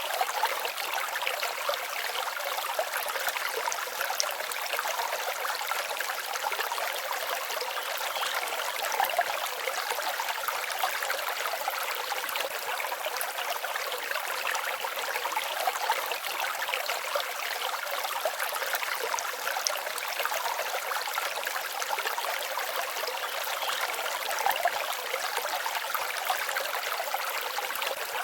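Shallow forest stream babbling and trickling over stones, a steady splashing water sound with no low rumble.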